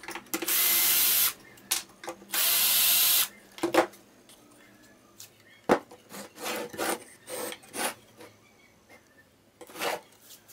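Cordless drill running in two bursts of about a second each, driving screws into the plywood of a homemade bench vise. After that come scattered wooden knocks, clicks and rubbing as the wooden vise jaw is slid and its wooden knob turned, with one sharp knock in the middle.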